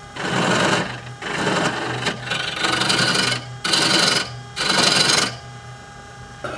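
Wood lathe running while a turning tool cuts into a spinning oak mortar blank in about five short passes, each a rush of cutting noise over the motor's steady hum. Near the end the tool is off the wood and only the lathe runs.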